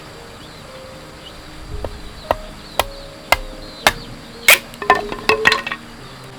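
Sharp chopping knocks, like a knife or cleaver striking a wooden board, about two a second, then a quicker run of strokes near the end, over soft background music.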